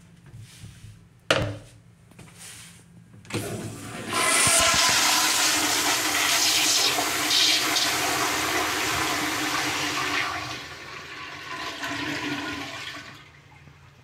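A sharp knock about a second in as the toilet lid is raised, then a tankless flush-valve (flushometer) toilet flushes: a sudden loud rush of water about four seconds in, easing after about six seconds to a quieter flow that stops near the end.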